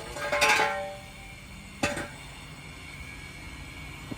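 Metal tools or parts clanking together with a short ringing: a rattle of clinks about half a second in and one sharp clank near two seconds.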